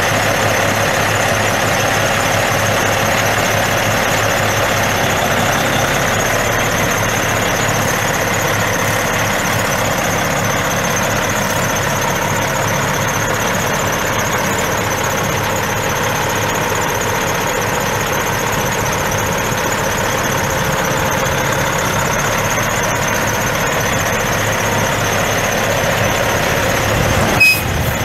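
Caterpillar C15 inline-six turbo diesel of a 2006 Peterbilt 386 semi truck idling steadily, with a steady high-pitched whine over the engine note. A brief sharp noise near the end.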